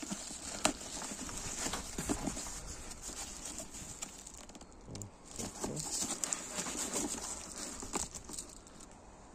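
Cardboard box and plastic packaging being handled and pulled open by hand: crinkling bubble wrap and a plastic bag, rustling cardboard flaps, with scattered small clicks and snaps.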